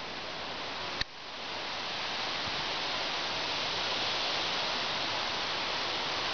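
Steady hiss of rain falling, with wind moving through the trees. A single sharp click about a second in, after which the hiss builds up and holds steady.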